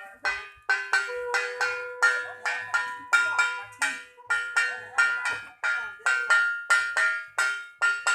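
Metal puja bell or gong struck over and over, about three ringing strikes a second, with a long steady tone held underneath from about a second in.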